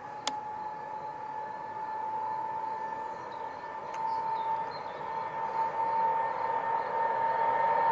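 Boeing 777F freighter's GE90 turbofan engines running at high power: a steady high whine over a rumble that rises slowly in pitch and grows louder as the jet rolls closer. A sharp click sounds about a quarter-second in.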